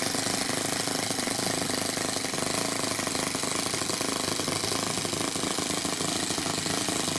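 Toyan FS-S100A miniature single-cylinder four-stroke nitro engine running at a low idle with a steady, rapid chatter. It is running rich on 20% nitro fuel.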